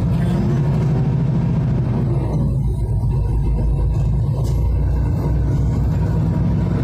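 Steady low rumble of a vehicle's engine and tyres, heard from inside the cabin while driving.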